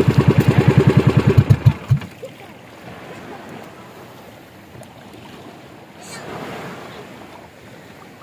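Motorized outrigger boat's (pakora) engine chugging in even beats, about seven a second, then cutting off about two seconds in. After that only faint water and wind as the boat glides on.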